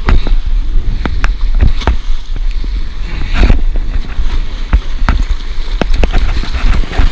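Wind buffeting the microphone over surf washing against rocks, with many sharp knocks and bumps throughout.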